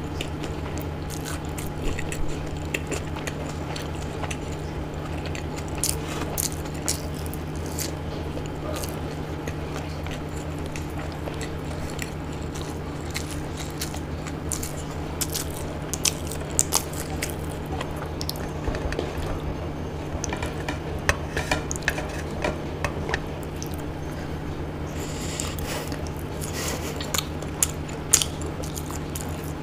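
Close-miked eating sounds: chewing and biting into fried pakoras and khichdi eaten by hand, with many short wet mouth clicks. Now and then there is a light clink of fingers or food on the plate, all over a steady low hum.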